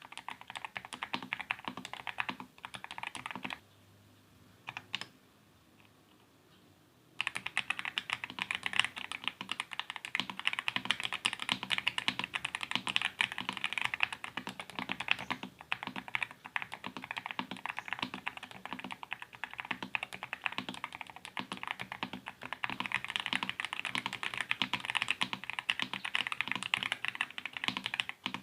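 Fast, continuous typing on a 60% mechanical keyboard with Akko linear switches, an ABS plastic case, a polycarbonate plate and cherry-profile double-shot keycaps. A few seconds in, the typing stops for about three seconds, with only a couple of single key presses, then carries on steadily.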